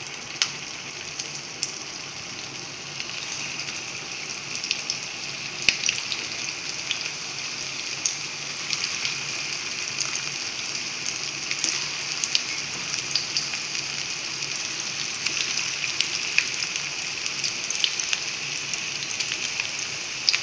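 Potato-and-semolina fingers deep-frying in hot coconut oil in a frying pan on high flame: a steady sizzling hiss with scattered crackles and pops, starting as the first piece goes in and growing a little louder as more are added.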